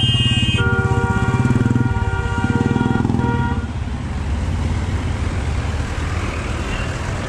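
Vehicle horns honking in street traffic, several honks in a row over the first three and a half seconds above a nearby engine running, then a steady traffic din.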